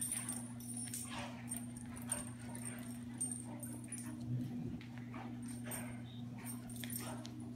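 Two dogs play-fighting, with soft dog vocal sounds and brief scuffles and paw noises scattered through. A steady low hum runs underneath.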